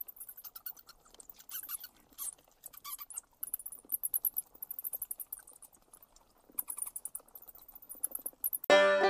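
Bats squeaking and chittering in rapid, very high-pitched trains of chirps, with a few lower squeals. Banjo music comes in loudly near the end.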